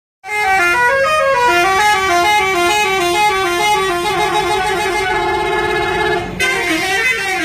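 Bus telolet horns playing a fast, stepping multi-note melody that starts suddenly. About five seconds in it turns to a rapid trill on fixed notes, breaks off briefly, then the melody starts again.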